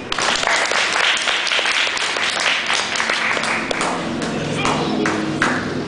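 Audience applause, a dense patter of many hands clapping, thinning out after about three and a half seconds into voices.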